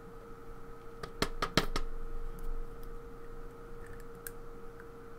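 Small metal parts of a pin-tumbler lock clicking and tapping as it is taken apart: a quick cluster of about five sharp clicks a little over a second in, then a few faint ticks, over a faint steady hum.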